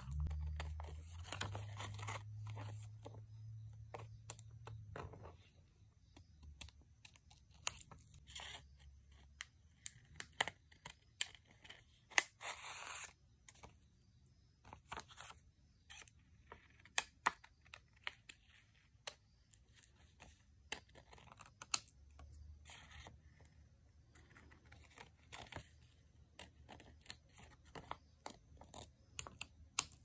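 Scissors snipping around paper leaf stickers: irregular sharp snips, with a few longer stretches of paper rustling as the sheet is handled.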